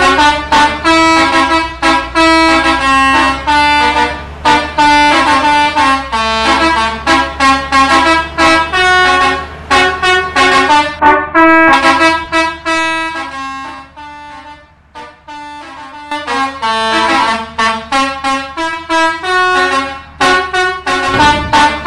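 Bus telolet horn: a bus's set of multi-tone air horns playing a quick melody of short honked notes, over a steady low hum. The tune drops away briefly about two-thirds of the way through, then starts again.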